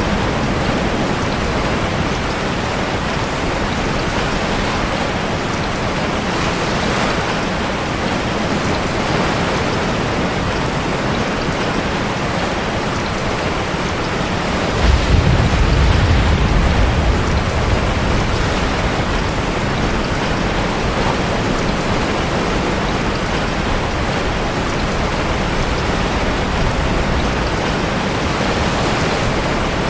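Steady heavy rain mixed with ocean surf heard from inside a sea cave, with a deep low rumble swelling about halfway through.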